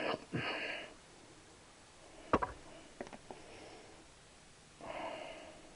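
A sharp metallic clink followed by a few light clicks as a tool bit is put to the end of a Triumph T120 crankshaft, then a short rush of noise near the end.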